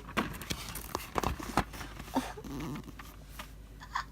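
Scattered clicks and light taps of printed photo cards and paper being handled, with a brief faint low vocal sound a little past the middle.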